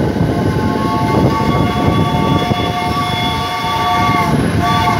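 A train's horn or whistle sounds a long, steady chord of several tones for about four seconds, then gives one short second toot, over the steady rumble and clatter of a moving train.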